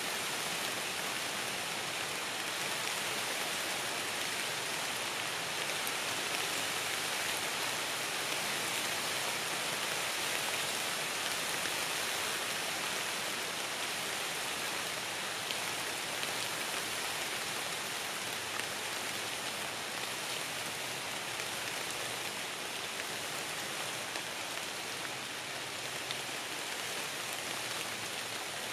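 Light rain falling steadily on the leaves of a deciduous forest, an even hiss with a few louder drops ticking here and there.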